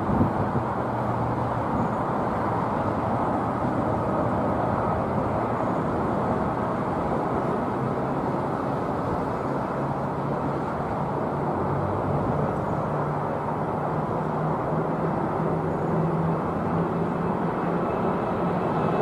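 Steady jet engine noise from an Airbus A380-842's four Rolls-Royce Trent 900 engines at takeoff power as it climbs out, growing louder near the end as the aircraft approaches overhead.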